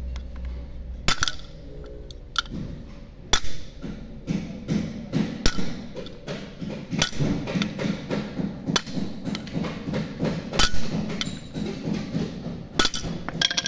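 Hammer lightly tapping on an old bearing used as a driver, pressing a new ball bearing into a Toyota alternator's end housing until it sits flush. The taps are sharp metal-on-metal strikes, roughly one a second and unevenly spaced.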